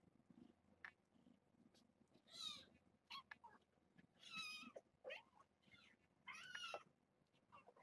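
Cat meowing: three high-pitched meows about two seconds apart, each about half a second long, with a few shorter squeaky calls between them.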